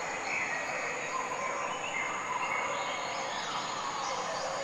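Jungle nature ambience: a steady, even hiss with faint bird calls chirping over it.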